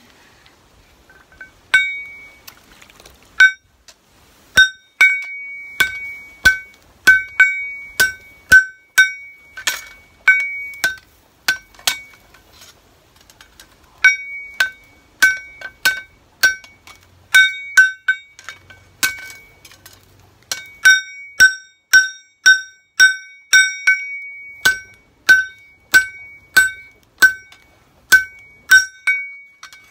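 Hand hammer forging a red-hot knife blade on a steel block anvil: a series of blows, each with a clear metallic ring, about one to two a second. The blows pause briefly about halfway through and come faster and more evenly in the second half.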